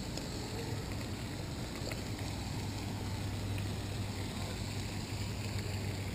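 Steady outdoor background noise with a constant low hum underneath, a little stronger from about halfway through.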